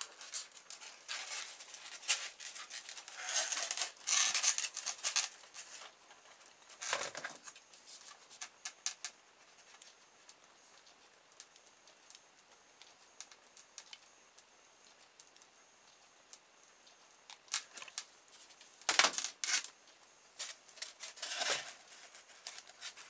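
Scratchy rubbing and clicking of a polystyrene foam block being handled as a wire rudder shaft is pushed into it and glued. It comes in short bursts during the first few seconds, again around seven seconds in and near the end, with a quiet stretch in between.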